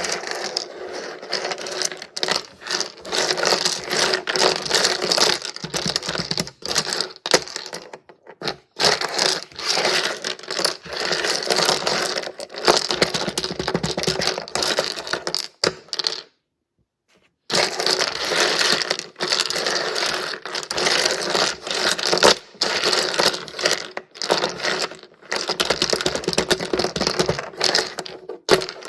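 Small hard resin pieces handled by hand: a dense run of clicking and clattering as they are stirred and rubbed together, stopping for about a second midway and briefly at a few other moments.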